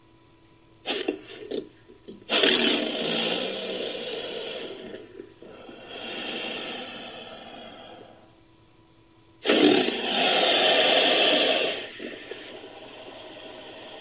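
Sound-effect American alligator calls made from recorded crocodilian sounds: a few quick rasping bursts about a second in, then three longer rasping calls. The last and loudest call starts about two-thirds of the way through and cuts off suddenly.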